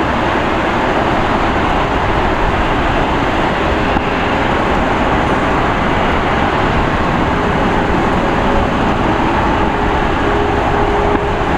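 Four GEnx turbofan engines of a Boeing 747-8F freighter running at high thrust during takeoff: a loud, steady rumble with faint steady whines.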